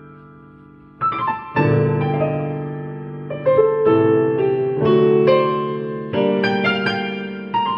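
Digital piano played with both hands in a slow improvisation: a held chord fades away for the first second, then new chords are struck every second or so with melody notes above them.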